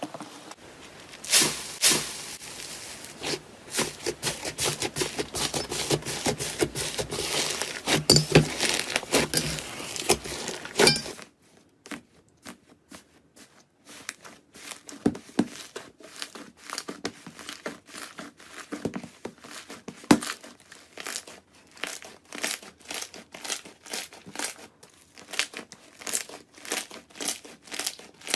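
Slime being squeezed and worked by hand, giving dense crackling and popping. About eleven seconds in it cuts to a quieter clip of slime crackling in a steady, repeated squeeze rhythm.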